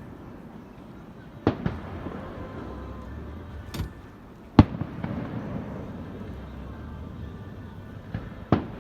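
Fireworks going off: about six sharp bangs at irregular intervals, the loudest about halfway through, over a low, steady rumble of the display.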